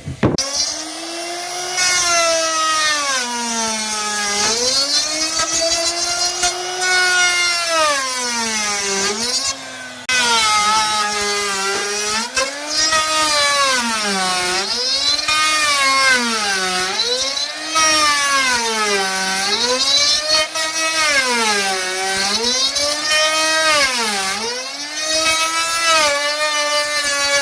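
Electric wood router running and cutting wood, its motor whine dipping in pitch as the bit bites in and rising back as it eases off, over and over every second or so.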